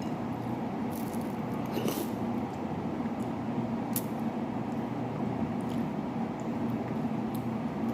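Close-up eating sounds: wet sucking and smacking on a boiled fish head, with a few sharp clicks, over a steady background hum.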